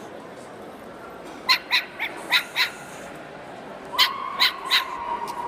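A dog barking in short, sharp barks: five quick ones about a second and a half in, then three more near the end.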